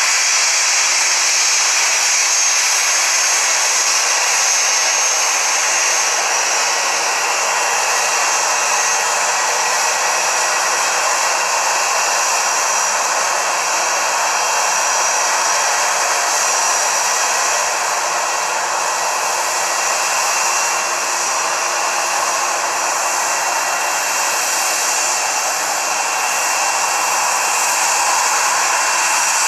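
Airbus A320-family airliner's jet engines running at taxi power as it rolls past close by: a steady loud hiss with several high whistling tones.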